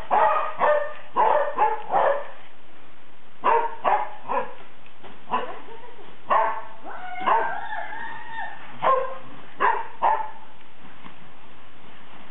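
Kerry Blue Terriers barking a run of short barks in bunches, with one long drawn-out howl-like call about seven seconds in.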